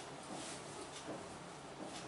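Hands working in a massage: soft rubbing and patting strokes, about two or three a second, over a steady hiss.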